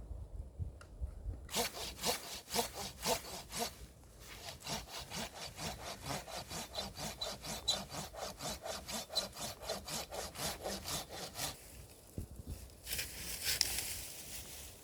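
Hand saw cutting through firewood in quick, even back-and-forth strokes, about three or four a second, with a brief pause partway through. The sawing stops near the end and is followed by a short rustling scrape.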